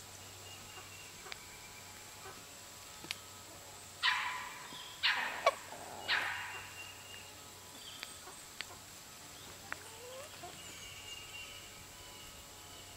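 Domestic turkey gobbling: three rattling gobbles in quick succession, about four to six seconds in.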